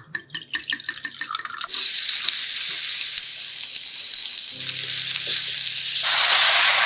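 White wine glugging out of the bottle into a plastic measuring cup for about a second and a half, then chopped onion and vegetables sizzling steadily in a frying pan. The sizzle grows louder and fuller about six seconds in, as wine is poured into the hot pan.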